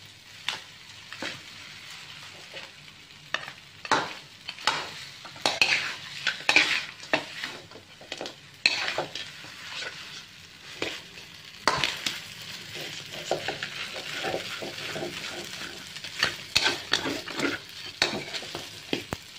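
Blue crab and glass noodles being stir-fried in a metal wok: a steady sizzle, broken by a metal spatula scraping and knocking against the pan again and again. The sizzle grows steadier about two-thirds of the way in.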